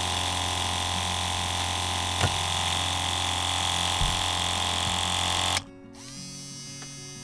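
A small electric water pump for a portable shower running with a loud, steady buzzing whine. About five and a half seconds in, it gives way to the much quieter, steady hum of the Colapz rechargeable shower pump running submerged in a water container.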